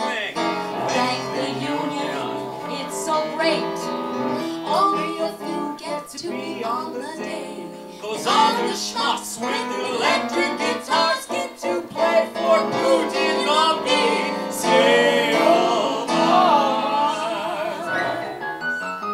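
Live music: an electronic keyboard playing, with a woman singing over it.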